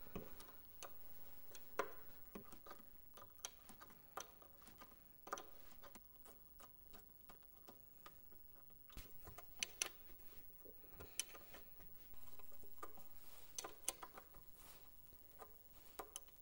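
Faint, irregular metal clicks and ticks of a wrench on the coil-pack bracket bolts, with the ignition wires being handled.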